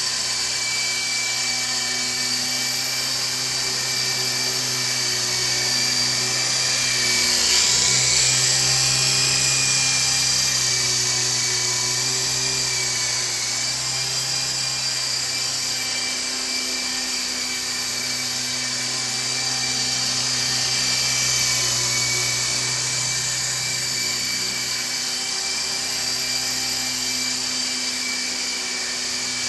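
Nano Lama micro RC helicopter in flight: its small electric motors whine steadily and its rotors buzz. The sound swells louder about eight seconds in and again around twenty seconds in.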